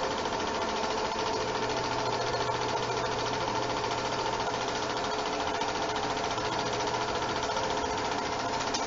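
8mm film projector running: a steady, fast, even clatter of the film advance with a constant motor hum.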